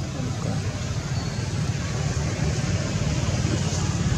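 Steady low rumble with a fast, even pulse, like a small engine idling.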